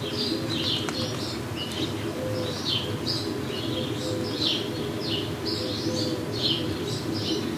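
Small birds chirping over and over, quick short downward-sliding notes several times a second, with a low repeated cooing underneath.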